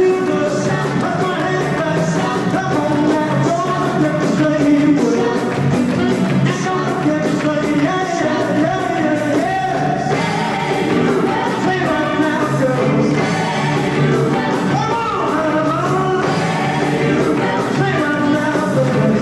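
Live rock and roll band playing a 1950s-style song, with a lead vocal over guitars and a steady drum beat.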